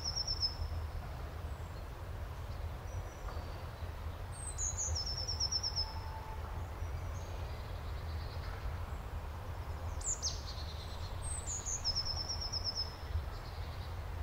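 A songbird repeating a short song that descends from high notes into a quick run of repeated notes, about every five to six seconds, over a steady low rumble.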